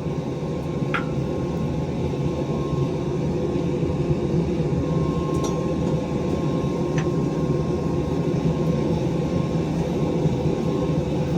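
Blacksmith's forge running with a steady rushing noise while a workpiece heats in the fire, with a few faint clicks.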